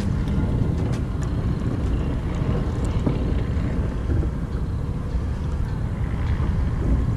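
Steady low rumble of wind on the microphone over open water, with a few faint clicks now and then.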